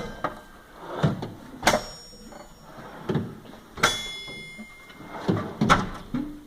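Drawers of a Tool Vault tool cabinet being slid open and shut, with a run of clacks and knocks. Two sharp metal clanks ring on briefly, one about a quarter of the way in and one past the middle.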